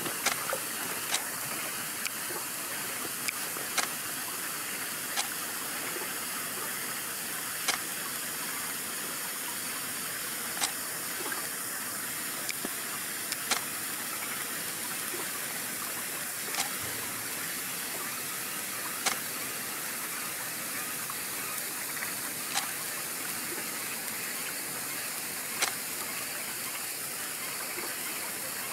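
Several 14-inch neon sparklers burning together: a steady hiss with a sharp pop every couple of seconds at irregular intervals.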